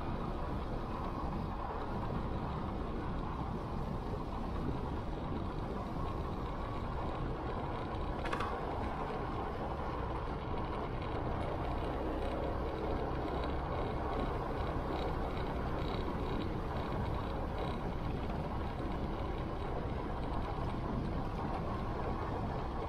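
Motorcycle riding steadily along a road: an even rumble of engine, tyre and wind noise.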